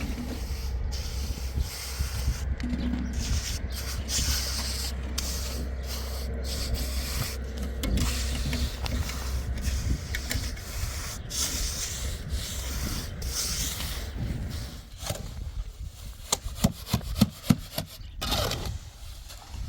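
Tools scraping and rubbing on concrete over a steady low hum, with a quick run of sharp knocks near the end.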